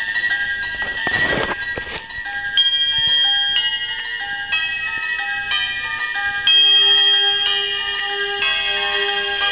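Musical light-up Christmas house ornament playing a Christmas tune as a simple electronic chime melody, one clear note after another. A brief rustle of handling comes about a second in.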